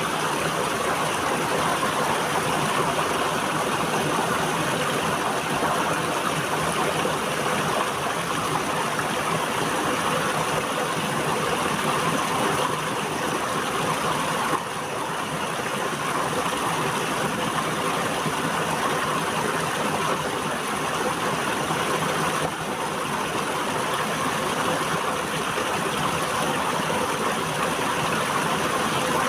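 River water flowing steadily, a continuous even rush with no break.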